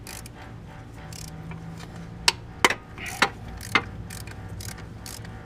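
Socket ratchet clicking as it turns the 14 mm bottom starter mounting bolt: a run of light clicks, with four sharper clicks a little past halfway, over a low steady hum.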